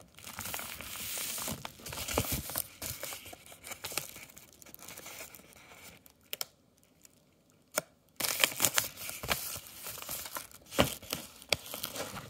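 Yellow paper mailing envelope being torn open and handled: paper tearing and crinkling in two spells, with a pause of about two seconds in the middle broken by a couple of clicks.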